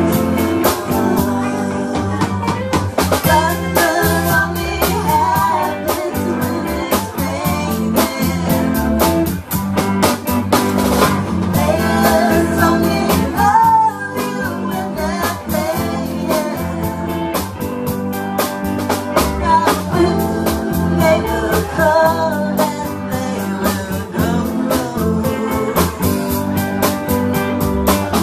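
Live band performing a song: a woman singing lead over electric guitar and a drum kit keeping a steady beat.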